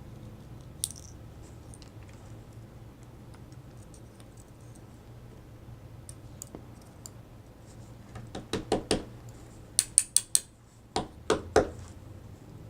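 Small metal clicks and clinks of lock pins, springs and tools as pin stacks are taken out of a disassembled pin-tumbler lock's chambers. They are sparse at first and come in a quick cluster of sharp ticks in the last few seconds.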